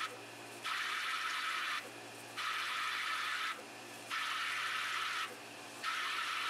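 Die-sinking EDM machine cutting under dielectric oil, a crackling hiss of sparks in bursts of about a second, each cut off by a short lull roughly every second and a half. The lulls are the electrode retracting at the end of each work cycle to pump fresh fluid into the cut. This is a high-power roughing cut with the flush running.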